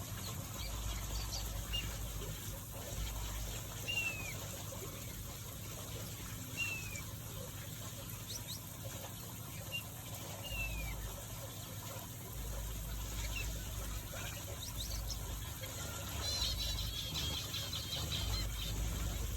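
Small finches calling in an aviary: single short, downward-sliding call notes every few seconds, then a burst of rapid high chattering about three quarters of the way through. A low rumble runs underneath.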